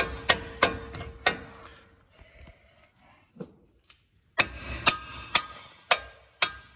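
Hammer blows on a steel suspension bolt and bracket under a Ford F-250's front end, tapping the bolt through its hole. A quick run of ringing metal strikes, a pause with a single hit, then another run of slower strikes.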